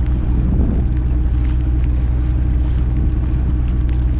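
Bavaria 40 sailing yacht's inboard diesel engine running steadily under way, a low even drone, with wind rushing over the microphone.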